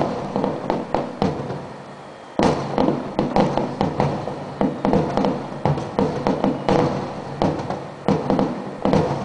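Aerial firework shells bursting in quick succession, one bang after another, each trailing off. There is a short lull about two seconds in, then a fresh run of bursts.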